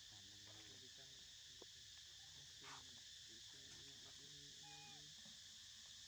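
Faint, steady buzz of an insect chorus, with faint distant voices talking underneath.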